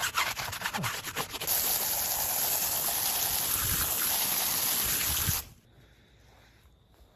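Fast brush-scrubbing strokes on the ATV, then a steady hissing spray of water from about a second and a half in that cuts off suddenly after about five seconds.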